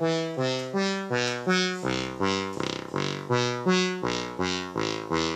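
Modular synthesizer playing a fast run of random notes sent from an Arduino MIDI generator, about three a second, each jumping to a new pitch with a sharp attack and quick fade, rich in overtones.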